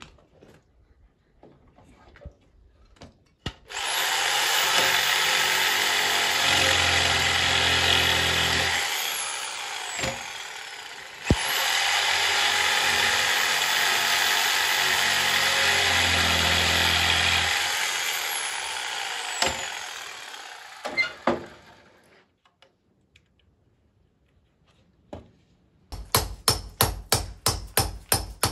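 A handheld electric planer shaving down the end of a round wooden beam: it runs twice, for about six and then about eight seconds, with a high whine, gets heavier while it is biting into the wood, and winds down after each run. Near the end comes a quick run of sharp knocks, about five a second.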